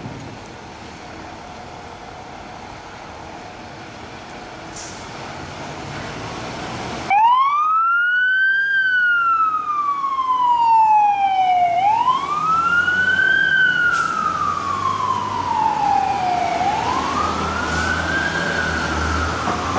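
About seven seconds in, a fire engine's siren switches on and wails up and down in slow cycles, each quick rise followed by a longer fall, over the truck's engine rumble. Before that there is a steady low rumble that slowly grows louder.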